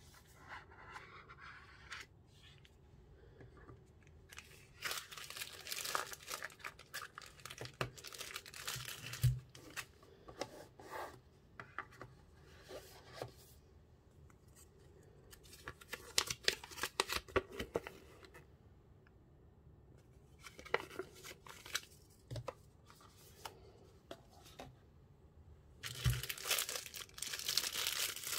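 Hands handling knife packaging: a cardboard box being opened, and a thin plastic bag around a folding knife crinkling in irregular bursts, loudest near the end. A few soft knocks, as of the box or knife touching the table, fall among them.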